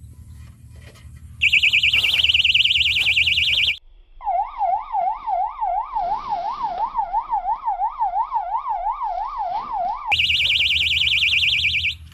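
Electronic siren-type fish bite alarm on a fishing rod going off as a fish takes the bait: a fast high warble, then a lower tone wailing up and down about three times a second, then the fast high warble again until it stops near the end.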